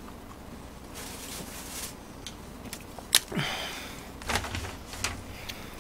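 Quiet handling noises: a large paper sheet rustling, with one sharp click about three seconds in.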